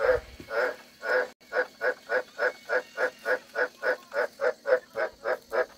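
A frog calling, repeating a short croaking note, about two a second at first and then quickening to about five a second from about a second and a half in.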